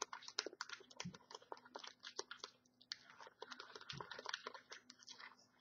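Homemade shampoo-and-baking-soda slime being squished and worked in the hands, giving faint, irregular little clicks and crackly pops.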